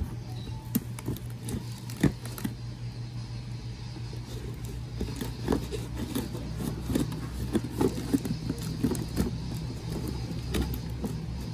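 Hands working a taped cardboard box open, with scissors along the packing tape: scattered light taps, scrapes and crinkles of cardboard and tape. A steady low hum runs underneath.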